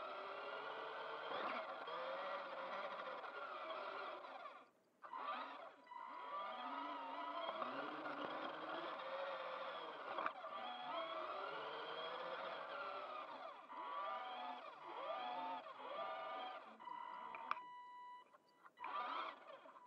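Small electric motor and gear drivetrain of a Kyosho Mini-Z Overland H2 Hummer RC car whining, its pitch rising and falling over and over with the throttle, cutting out briefly about five seconds in. Near the end a steady beep-like tone sounds for about a second and a half.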